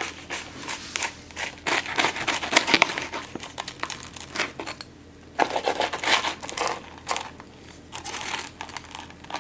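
Irregular crinkling and rustling, with many short sharp crackles, as something is handled.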